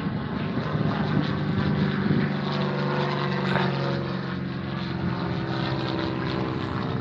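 Sonex light aircraft with a Jabiru engine flying past overhead, its engine and propeller giving a steady drone.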